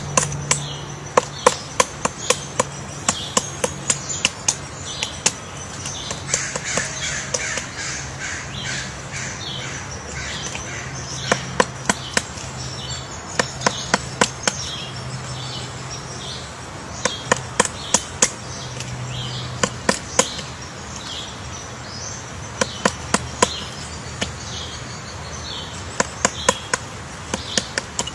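Woodpecker pecking wood: short fast runs of sharp knocks, coming again every few seconds. In the middle a bird calls over the pecking in short notes repeated about twice a second.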